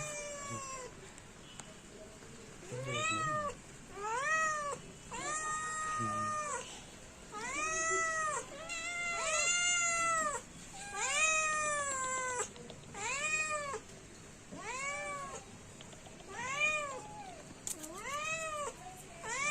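A kitten meowing over and over: about a dozen separate high meows, each rising and then falling in pitch, most short but a few drawn out, with a gap of a second or two between calls.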